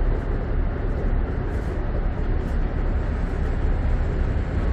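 Steady low rumble of harbour and city ambience, with boat engines and distant traffic blending into one continuous drone.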